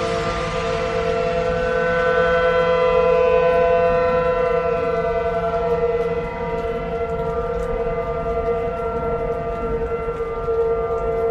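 Outdoor warning siren sounding a steady alert tone for severe weather. The pitch holds level while the volume swells and dips slightly.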